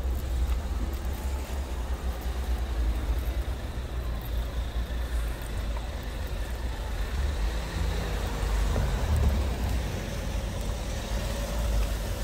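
A motor vehicle running close by on the road, heard as a steady low rumble with a faint engine tone that rises slightly near the end.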